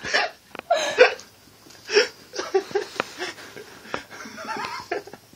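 A young man's pained vocal groans and gasps in short irregular bursts, about one every second or less, his mouth burning from a habanero pepper.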